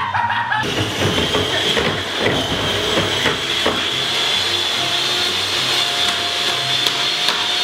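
Small electric hand mixer running at speed, its motor whining steadily while its beaters churn and splash a watery glue mixture in a plastic tub.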